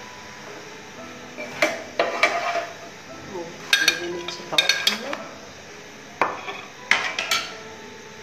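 Metal tongs and a steel spatula clinking and knocking against a frying pan and a ceramic plate as a fried paratha is lifted out and set down. Several sharp clinks come in short clusters.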